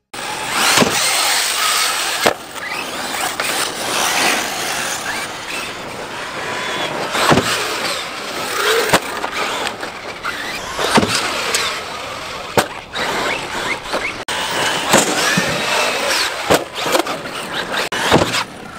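Electric RC trucks driving on dirt: motor whine rising and falling with the throttle over tyre and dirt noise, with sharp knocks now and then.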